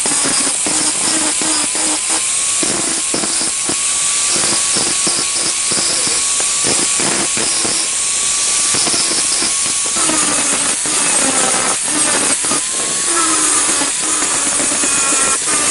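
Electric power tool working the metal of an old rusty hammer, its motor whine dipping and recovering as it is pressed into the work, with a steady rough grinding noise.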